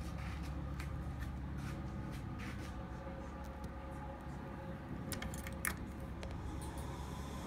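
Motorcycle ignition key being handled and turned on: a few light metallic clicks and key jingle, with a cluster of sharper clicks about five seconds in as the switch turns. A steady low hum runs underneath, and a faint rising whine comes in near the end.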